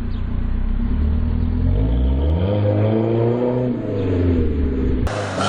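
Chevrolet Colorado's 2.9-litre GM Vortec 2900 (LVV) inline-four, heard through an aftermarket exhaust. It idles steadily, is revved up about two seconds in, holds briefly and falls back to idle. Just before the end a different recording cuts in with another rev starting to rise.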